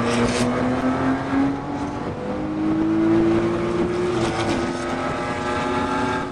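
Car engine heard from inside the cabin during track driving, pulling hard with its pitch rising and dropping back sharply twice, about two and four seconds in, over a steady rush of wind and road noise.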